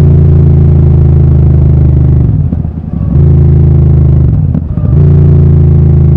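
Royal Enfield Super Meteor 650's parallel-twin engine running loud through an aftermarket Gursewak exhaust with its dB killers removed. A steady, deep exhaust note that dips briefly twice in the middle of the clip before coming back.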